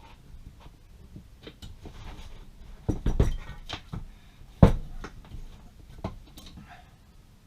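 Small metal parts clinking and knocking as a wire rope, its ferrule and a stop are handled and threaded by hand: scattered light clicks, a cluster of knocks about three seconds in and one sharper knock at about four and a half seconds.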